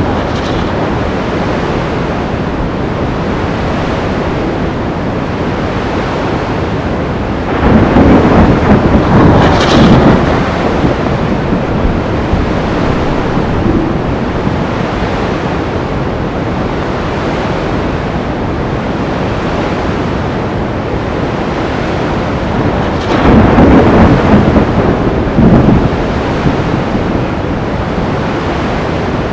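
Storm at sea: a steady rush of breaking waves and wind, with two loud rolls of thunder, one about eight seconds in and another near twenty-three seconds, each lasting two to three seconds.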